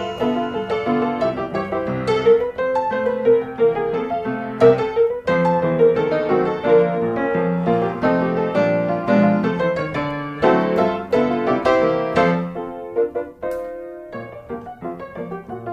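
Background music led by piano, a quick run of light notes, growing sparser and softer about thirteen seconds in.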